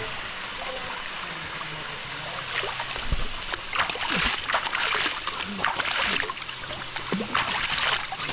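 Waterfall water falling and splashing in a steady rush. From about three seconds in it turns into irregular, louder splashes, as the water strikes a body standing under the fall.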